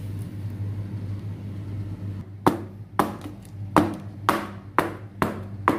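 A batter-filled metal loaf tin knocked repeatedly on the kitchen counter: about eight sharp knocks, roughly two a second, starting a couple of seconds in, to settle the batter and knock out air bubbles. A low steady hum runs underneath.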